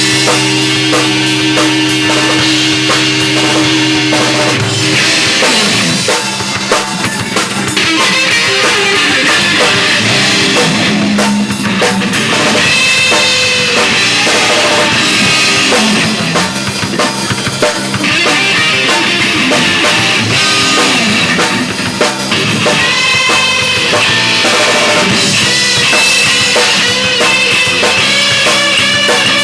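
Rock band playing an instrumental passage on drum kit, bass and electric guitars. Held notes ring for about the first five seconds, then the playing turns busy, with steady snare and bass-drum hits.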